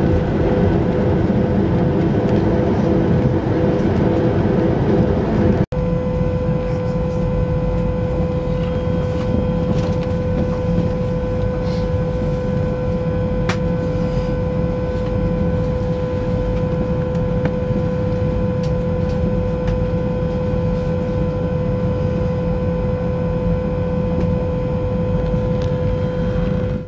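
Cabin noise of a Boeing 737-500 taxiing with its CFM56 engines at idle: a steady rumbling drone. After a break about six seconds in, a steady engine whine holding one pitch runs on over the rumble.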